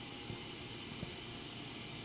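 Kuraki KBT-11WDX CNC horizontal boring mill running under power: a steady mechanical hiss over a low hum, with a couple of faint knocks.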